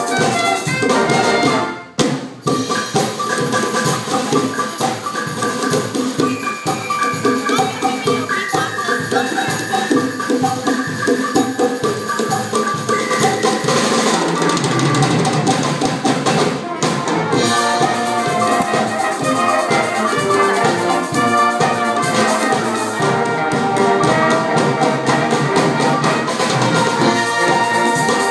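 Wind band of saxophones, trumpets, trombones and clarinets playing a samba over a steady drumbeat. The music drops out briefly about two seconds in and comes back in on a hit.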